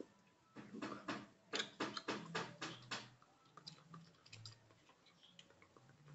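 A quick run of crisp clicks and taps close to the microphone, densest over the first three seconds, then scattered.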